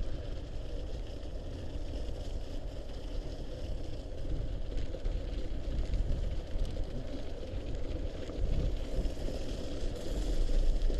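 Mountain bike tyres rolling over packed, slushy snow on a gravel trail: a steady rolling noise with a heavy low rumble underneath.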